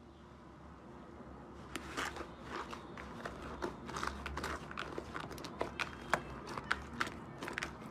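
Crisp crunching and crackling: many irregular sharp clicks that begin about two seconds in, over a faint low hum.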